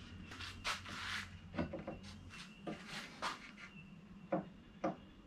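Plywood drawer unit and top panel being handled and fitted: a series of light wooden knocks and clicks, with a brief scrape about a second in.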